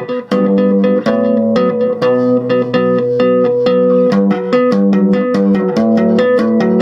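ESP LTD B-206SM six-string electric bass played by two-handed tapping through a small 15-watt Crate amp, on the neck pickup with the treble turned all the way up. A quick stream of sharply struck, ringing notes, with one high note that keeps coming back over shifting lower notes.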